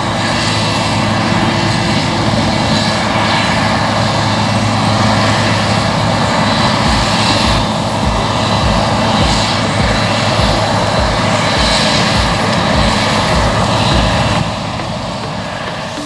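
Claas Lexion 630 combine harvester running steadily while harvesting wheat: a constant engine and machinery drone, a little quieter for the last second and a half.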